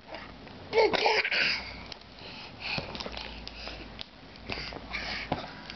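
A short, loud voiced cry about a second in, then several short breathy huffs and sniff-like exhalations.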